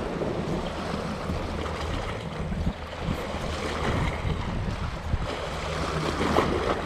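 Wind on the microphone and sea water washing around a small fishing boat, with a low steady hum underneath.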